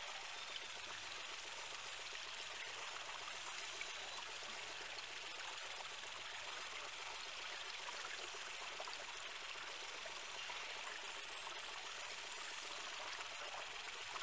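Water rushing steadily around the boat, with a couple of faint high rising whistles from the beluga whales swimming alongside.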